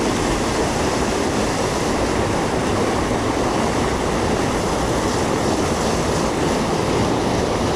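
Steady rush of fast-moving stream water spilling over a small fall, an unbroken wash of noise.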